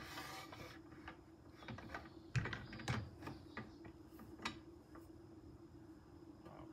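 Light, irregular clicks and knocks from a Rockymounts Tomahawk bike rack being handled and seated on roof crossbars, with a few sharper knocks around two and a half, three and four and a half seconds in.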